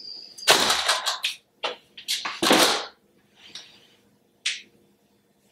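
Peel-and-stick floor tiles being set down and slid into place on the floor: a series of short slapping and sliding strokes, the loudest about halfway through, then a single brief swish near the end.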